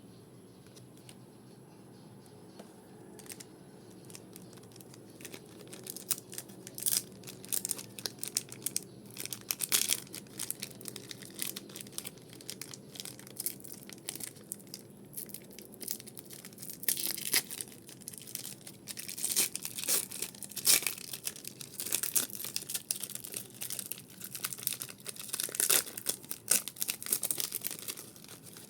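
Pokémon card booster pack wrappers being torn open and crinkled by hand, in irregular bursts of crackling that begin about six seconds in after a quiet stretch.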